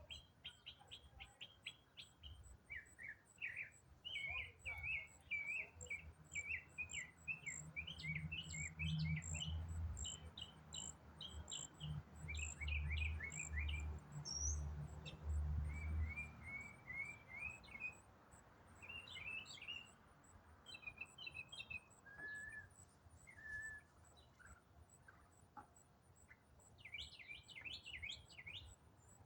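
A songbird singing a long, varied song of quick chirps, trills and repeated notes, phrase after phrase. A low rumble swells and fades in the first half.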